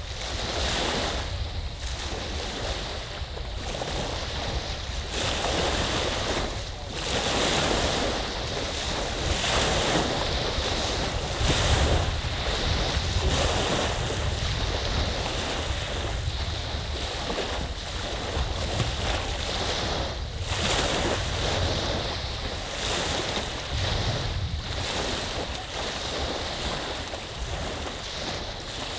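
Small lake waves breaking and washing onto the shore in a continuous rush that swells and eases every few seconds. Wind buffets the microphone underneath.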